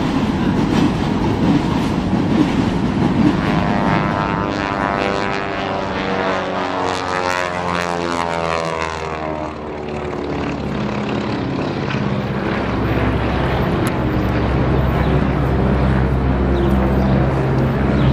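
A Beech 18's two Pratt & Whitney R-985 Wasp nine-cylinder radial engines droning with propeller noise during an aerobatic pass. The engine pitch sweeps up and down through the middle, then settles into a steady low drone.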